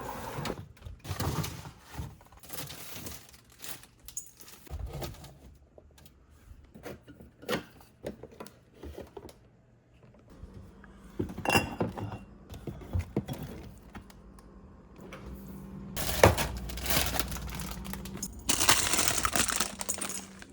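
Scattered clicks and knocks of small hard objects being handled, with two louder stretches of hiss or rustling near the end.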